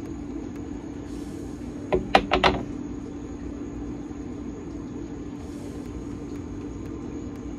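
A painted canvas being handled and tilted on a work table, knocking against the table four times in quick succession about two seconds in, over a steady low hum.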